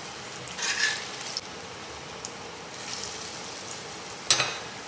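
Zucchini fritters deep-frying in a steel pan of hot oil: a steady sizzle that swells briefly about a second in as the skimmer stirs them. Near the end comes one sharp knock, the metal skimmer set against the pan.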